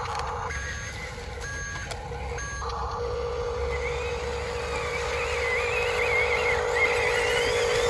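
Remote-control model truck giving three short electronic reversing beeps about a second apart over a steady hum, then a higher wavering whine comes in about halfway through.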